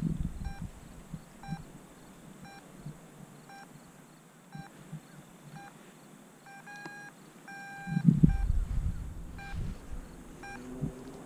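A paragliding variometer beeping in short, regular pulses of one pitch, about three every two seconds, with a couple of longer beeps about seven seconds in. A gust of wind rumbles on the microphone about eight seconds in.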